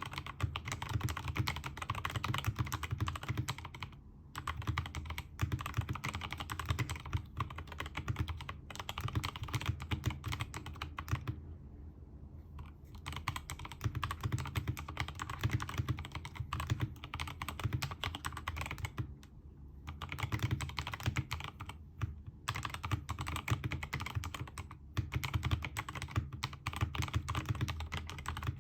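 Steady fast typing on a Keychron K2 v2 mechanical keyboard with Gazzew Boba U4T tactile switches lubed with Krytox 205g0, PBT keycaps and a silicone-filled aluminium case: a dense run of keystrokes broken by short pauses a few times.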